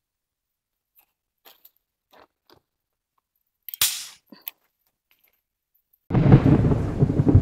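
A loud thunderclap with heavy rain breaks in suddenly about six seconds in: a deep rumble under a hiss of rain. Before it there are only faint clicks and rustles, with one sharp crackle about four seconds in.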